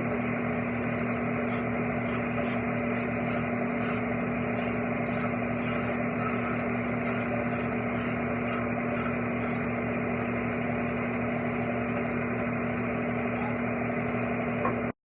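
Steady motor hum from a kitchen appliance, with a run of short faint high ticks in the first half; it cuts off suddenly near the end.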